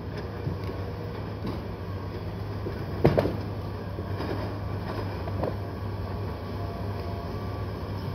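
Diesel engines of hoe chucker log loaders running steadily under hydraulic load, with a loud knock about three seconds in and a few lighter knocks from logs being thrown and shifted.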